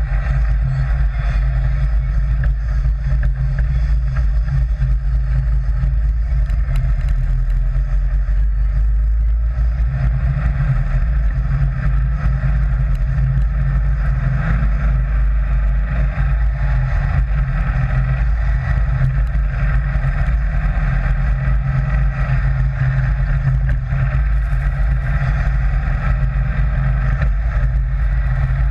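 Sand rail's engine running steadily as the buggy is driven along, a continuous even drone with no pauses or changes in pace.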